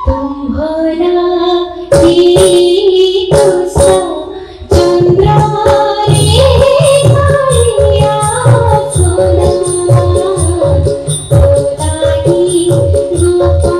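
Odissi dance music: a singer's voice over a drum beat and small cymbals struck in a steady rhythm. The music drops away briefly about four seconds in, then comes back in full.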